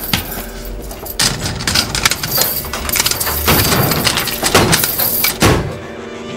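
Metal bars smashing into metal safe-deposit boxes: a dense run of heavy crashes and bangs that cuts off about five and a half seconds in, where steady orchestral string music takes over.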